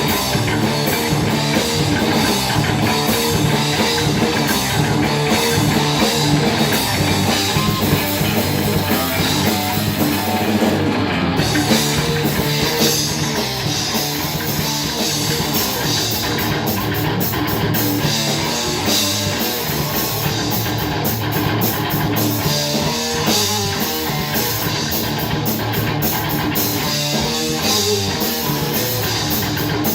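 Metal/grindcore band music: heavily distorted guitars over fast, dense drumming, a continuous wall of sound with no vocals heard.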